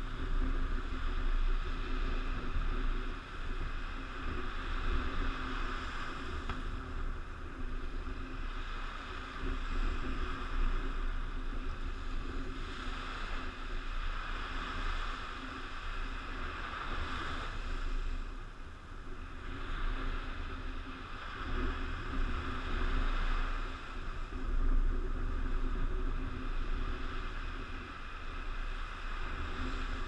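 Strong wind buffeting the microphone with a low rumble, over small waves breaking and washing up the sand, their hiss swelling and fading every few seconds.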